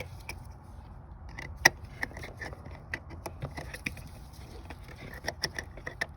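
Scattered light clicks and taps of parts and tools being handled while a car's new fuel pump assembly is put back together, with one sharp click about one and a half seconds in. A low steady rumble runs underneath.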